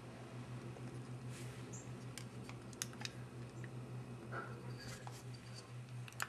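Scattered light clicks and taps of small metal camera parts being handled as the Bolex D8L 8mm camera's mechanism plate is lifted out of its body, over a steady low hum.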